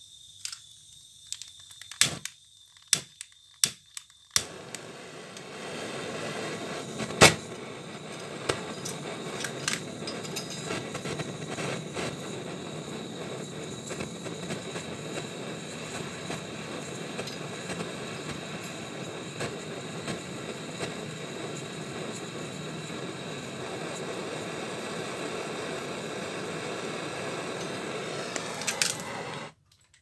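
Handheld gas torch clicking several times at the igniter, then lighting about four seconds in and burning with a steady rushing hiss as it brazes the refrigerator's pinched copper charging tube shut. The flame cuts off abruptly near the end.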